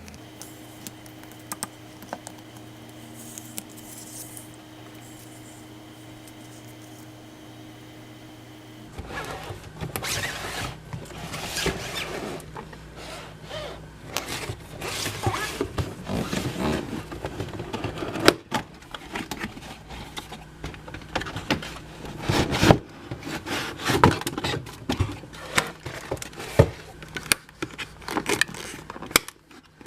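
A low steady hum for about nine seconds, then a run of irregular clicks, scrapes and rattles as a plastic toy and its packaging are handled.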